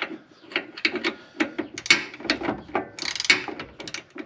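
Socket ratchet clicking in short, irregular strokes as a bolt is run in by hand.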